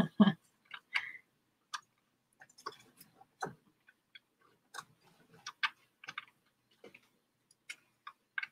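Faint, irregular small clicks and ticks, about a dozen of them spaced unevenly.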